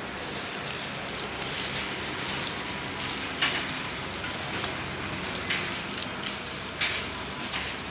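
Irregular crackling and small clicks over a steady hiss, like packaging being handled.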